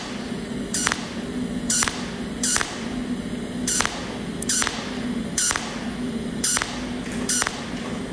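Arc welding: a sharp crackling burst roughly once a second, each trailing off into a hiss, over a steady low hum.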